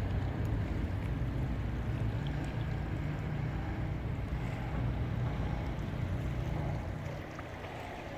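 Low, steady drone of a small cargo ship's diesel engine as the ship moves slowly past close by, getting somewhat quieter near the end.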